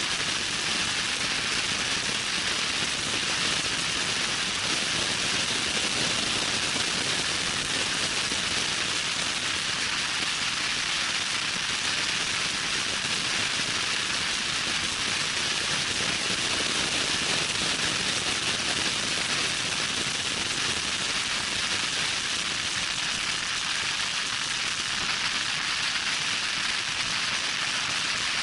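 Loud, steady wind noise, a constant rushing hiss, from a vehicle driving fast on a dirt road.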